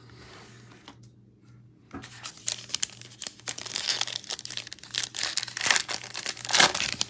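Plastic trading-card pack wrapper being torn open and crinkled in the hands. The crackling starts about two seconds in, with the loudest rip near the end.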